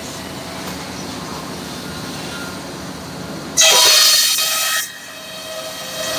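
Breast bench circular saw running steadily, then cutting into timber a little past halfway: a sudden loud, high-pitched whine with several tones that lasts about a second and stops abruptly. Near the end the saw's whine builds again.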